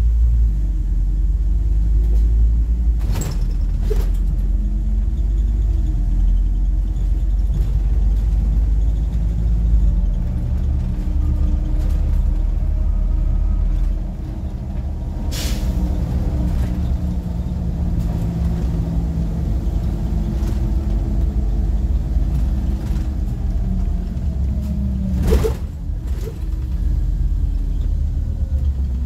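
Scania CN270UB city bus's 270 hp diesel engine running under way, heard from the driver's cab, its pitch rising and falling as the bus speeds up and slows. A short hiss about halfway through and a couple of brief clicks.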